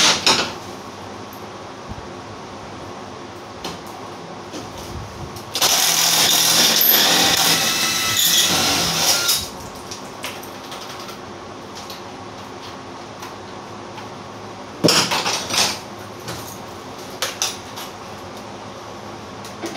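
Cordless drill running in one stretch of about four seconds while backing bolts out of the truck's ceiling, then a second, shorter run of about a second later on. A few sharp clicks and knocks fall in between.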